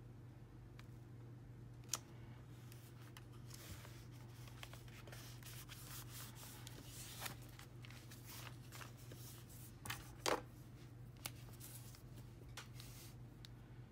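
Quiet paper handling: a photo print and journal pages pressed, rubbed and moved by hand. There are scattered soft rustles and a few sharp taps, with a louder rustle about ten seconds in, over a faint steady hum.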